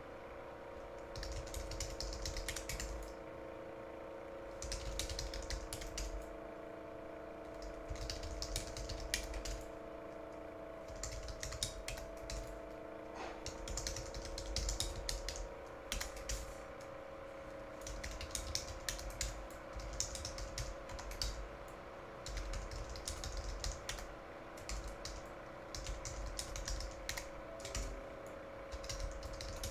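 Typing on a computer keyboard in short bursts of clicks every couple of seconds, over a steady hum.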